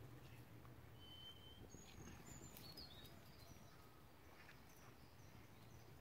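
Near silence with faint outdoor background noise, and a few faint, short, high-pitched bird chirps about one to three seconds in.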